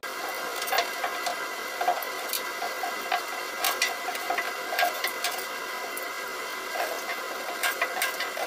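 Large kitchen knife scraping and chopping at leek roots over a stainless-steel sink, giving irregular sharp clicks and knocks, with tap water running steadily into the sink.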